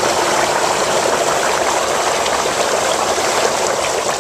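Jacuzzi Elite series whirlpool tub's jets still running after the on-off button has been pressed, churning the bath water in a steady rush during the tub's roughly ten-second shutdown delay. The rush begins to fade right at the end.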